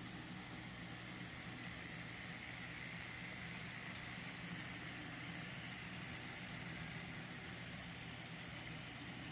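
Several N-scale model trains running on a tabletop layout: a steady whir of their small electric motors and wheels rolling on the track.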